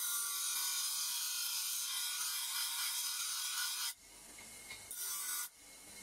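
Steady rasping scrape of a tool working a piece, stopping about four seconds in, followed by a shorter scrape near the end.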